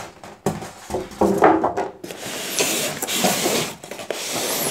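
A flat-screen monitor in a plastic protective bag being handled in its polystyrene foam packing: a knock about half a second in, then a short squeak. A long rustle of the plastic sheet rubbing over the foam follows.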